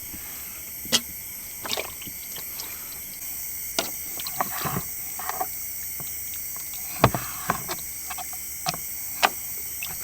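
Knife slicing chicken breast on a cutting board: irregular short knocks and scrapes, the loudest about seven seconds in, over a steady chorus of crickets.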